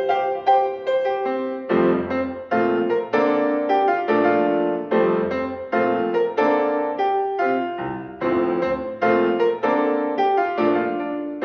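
Solo piano playing, a steady run of struck notes over chords, with low bass notes entering now and then.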